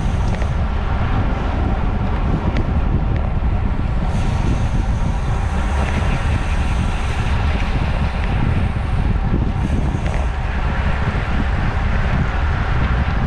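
Wind buffeting the microphone of a camera on a road bike riding in a racing pack at about 25 mph: a steady, loud, low rumble. A higher hiss comes and goes twice in the middle.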